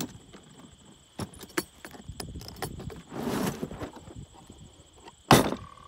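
Hard plastic tool case being opened: its latches snap open with sharp clicks, a few lighter clicks and a rustle follow as the lid is lifted and the contents shift, and a single sharp knock comes about five seconds in.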